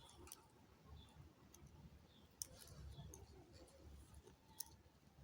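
Near silence with faint rustling and a few soft clicks, the clearest two about two and a half and four and a half seconds in, as macrame cord is handled and threaded through a bag handle.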